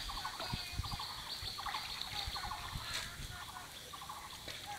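An animal's short rattling call, a quick run of even notes, repeated about every three-quarters of a second, over a steady high-pitched whine.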